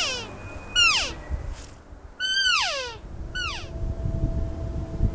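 Cow elk call blown by a hunter: a series of mews, each a single call sliding steeply from high to low, three of them about a second apart, with the last one short. The cow calling is meant to draw a rutting bull elk in close.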